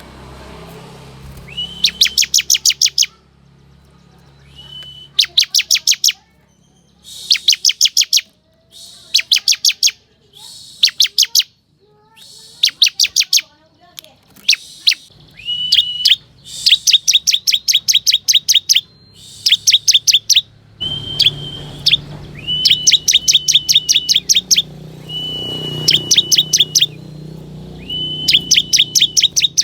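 Bar-winged prinia (ciblek kristal) singing: repeated short bursts of very fast, sharp notes, many opening with a brief steady whistle, one burst every second or two. A low hum runs underneath, louder in the second half.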